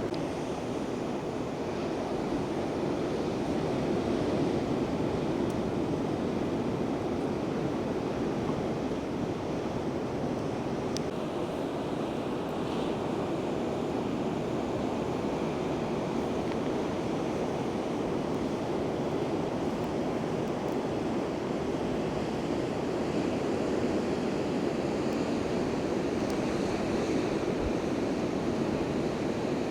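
Steady rushing of ocean surf, mixed with wind buffeting the microphone, with no distinct crashes or breaks.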